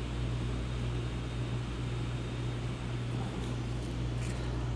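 Steady low hum with a light hiss over it, the background noise of a small room, broken by a couple of faint soft ticks in the second half.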